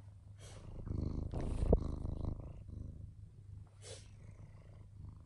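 Black house cat purring steadily right against the phone's microphone. Its fur brushes over the phone, giving a louder rustling stretch with a sharp knock about a second and a half in, and a short breathy noise near four seconds in.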